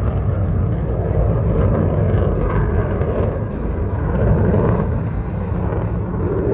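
Steady rumbling roar of a distant jet aircraft in flight, swelling and easing slightly over the seconds.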